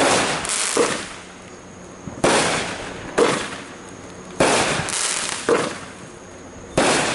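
Consumer fireworks going off in a quick series of about seven sharp bangs, roughly one a second, each fading quickly.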